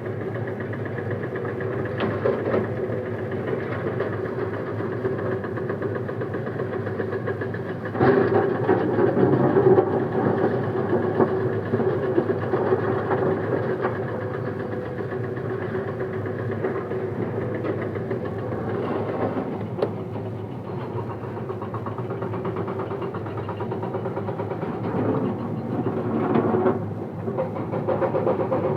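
Komatsu excavator's diesel engine running steadily while its hydraulic breaker works on rock. There is a louder, rougher stretch of hammering about eight seconds in, and a few sharp knocks.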